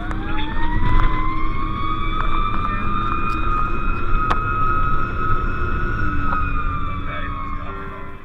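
Fire engine siren heard from inside the cab over the truck's engine rumble. It winds up quickly to a high steady wail, holds for several seconds, then slides down in pitch and fades near the end.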